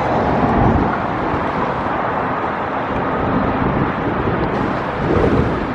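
Strong wind buffeting the microphone: a loud, steady rumbling noise that swells and eases with the gusts.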